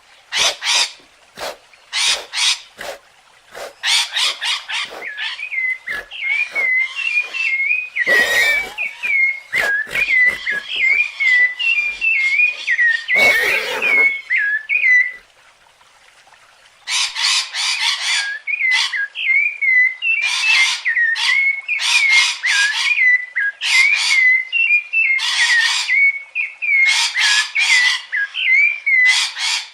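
Bird calls: a fast series of short scratchy calls over a warbling whistle, broken by a pause of about two seconds midway.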